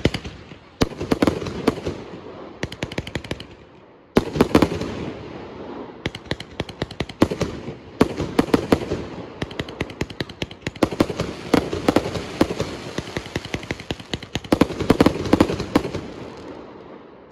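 A 238-shot firework cake firing: a dense run of launch thumps, bursting shells and crackling stars, growing louder in surges every three to four seconds.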